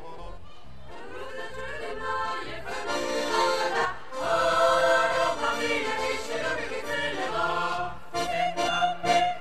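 Mixed folk choir of men and women singing, growing louder about four seconds in.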